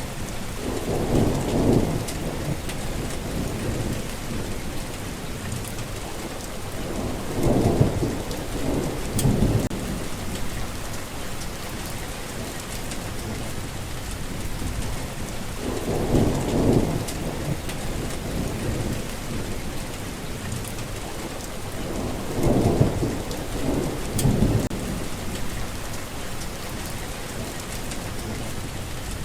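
Steady rain falling, with low rumbles of thunder rolling in four times, each lasting a second or two.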